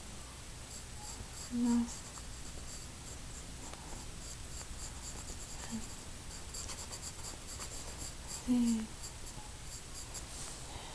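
Pencil shading on paper over a sketchbook: quick scratchy strokes repeating throughout, densest a little past the middle. Two short voice sounds cut in, about two seconds in and again about eight and a half seconds in.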